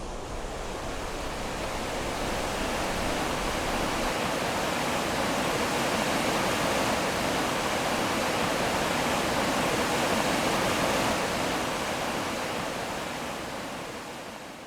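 Steady rush of a waterfall running high with spring meltwater, swelling slightly over the first few seconds and fading out near the end.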